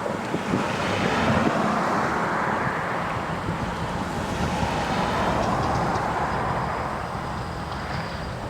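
Federal Signal STH-10 electromechanical outdoor warning siren winding down after its test alert, its tone swelling and fading as the rotating horn turns.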